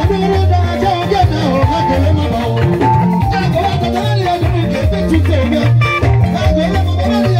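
Live band playing upbeat dance music: electric guitars over a low bass line and a drum kit, in a steady repeating rhythm.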